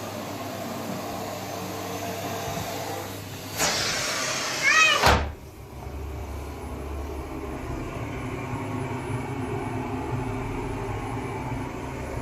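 Bosch BGS7PRO1 bagless vacuum cleaner running on a carpet. About three and a half seconds in, the airflow rushes louder with a brief wavering whistle. Just after five seconds it settles into a lower, deeper steady run.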